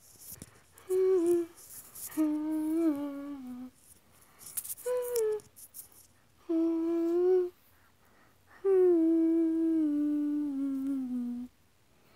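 A young girl humming a tune in short phrases, the last a long note that slowly steps down in pitch.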